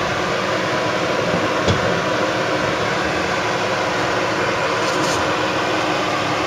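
Nissan Frontier Pro-4X pickup engine running steadily at low speed while crawling over rock, with one brief knock a little under two seconds in.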